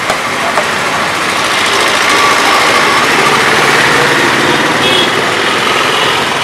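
Puris deep-frying in hot oil in an iron karahi: a loud, steady sizzle, with a couple of small knocks near the start.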